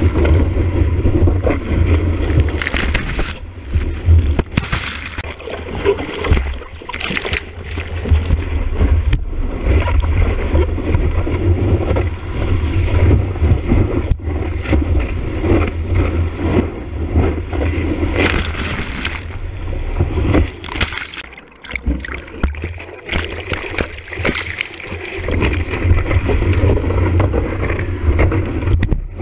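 Rushing wave water and spray against a camera on the nose of a surfboard while it rides a wave: a constant heavy low rumble with splashes on top, easing briefly about three-quarters of the way through.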